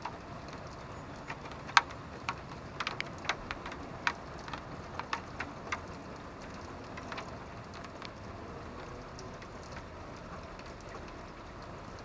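Rain falling in a steady hiss, with sharp individual drops or drips striking a surface at irregular moments, thick in the first half and sparser after about six seconds.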